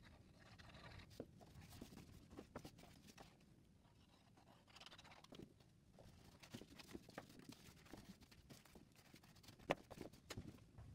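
Faint rustling and tapping of card stock as the sides of a paper box are folded, pressed and handled, with one sharper click about a second before the end.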